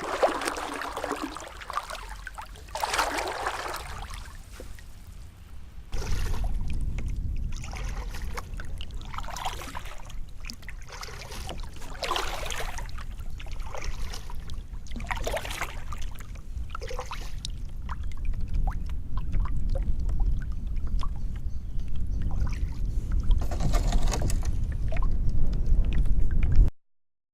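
Paddle strokes dipping and splashing in the water, one every two to three seconds, with water trickling off the blade. A low wind rumble on the microphone comes in about six seconds in and grows louder, and the sound cuts off abruptly near the end.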